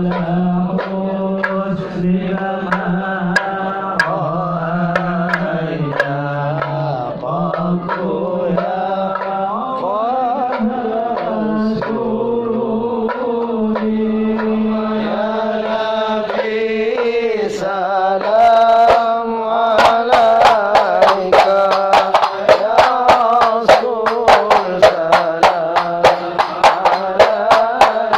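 Men chanting a Maulid devotional song (sholawat), a lead voice amplified through a microphone over others. About twenty seconds in, frame drums (rebana) join with a quick, even beat of about four strokes a second.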